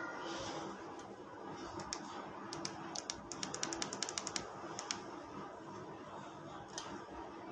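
Computer keyboard typing: a quick run of about twenty sharp key clicks in the middle, then one more click near the end, over a faint steady hum.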